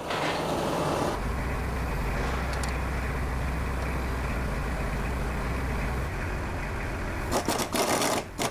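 A steady low background rumble, then from about seven seconds in a run of quick mechanical clicks: a ratchet socket wrench turning a bolt on the gearbox engine mount.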